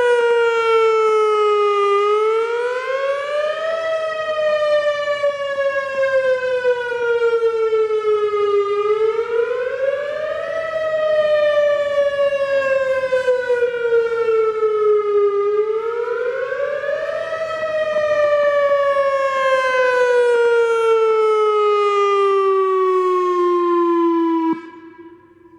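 Whelen WS-2000R electronic tornado siren sounding a wail. The pitch rises quickly over about two seconds and falls slowly over about five, three times, with faint crackling from the collector rings of its rotating speaker array, which is normal for this model. It cuts off abruptly near the end.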